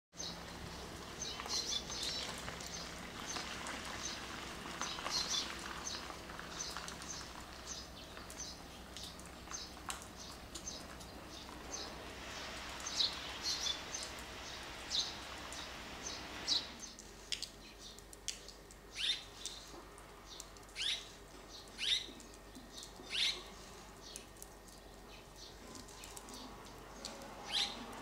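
Red-rumped swallow calling: a rapid run of short, high chirps, then from about halfway separate downward-sliding calls spaced roughly a second apart. A faint background hum drops away at the same point.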